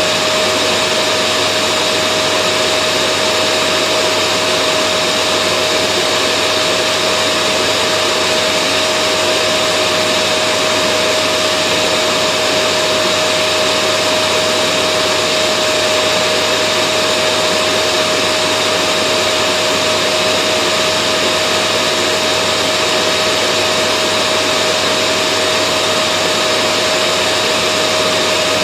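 Vacuum cleaner running continuously at a constant speed: an even rushing hiss with a steady motor whine and no change in pitch or level.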